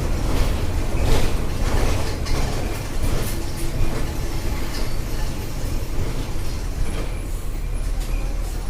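Volkswagen Volksbus 17.230 EOD diesel city bus running, with a steady low engine drone and frequent short knocks and rattles. The low engine note settles lower and steadier about seven seconds in.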